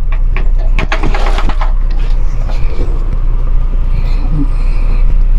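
Clattering and rustling as things are picked up and handled, strongest in a burst of about a second near the start, over a loud steady low hum.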